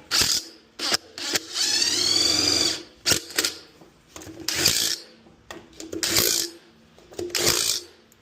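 Power drill-driver run in short bursts, tightening fasteners during reassembly, with one longer run of about a second early on. The bursts come roughly every one and a half seconds.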